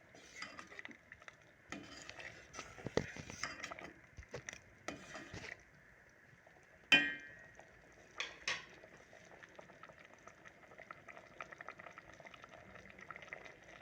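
A metal spoon stirring and scraping thick tamarind chutney in a pot, with a sharp ringing clink against the pot about seven seconds in and another just over a second later. After that, a faint, fast popping of the thickened chutney bubbling as it simmers.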